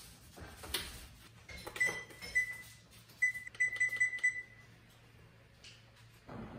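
Westinghouse electric range's control-panel keypad beeping as the timer's up-arrow button is pressed again and again to set it: about eight short, high electronic beeps in quick succession. A few clicks and knocks come first.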